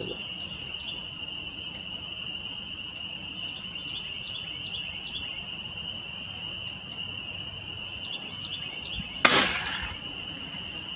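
A single shot from an FX Crown .22 PCP air rifle about nine seconds in: one sharp crack that dies away over about half a second. Before it, a steady high insect buzz with repeated short falling chirps.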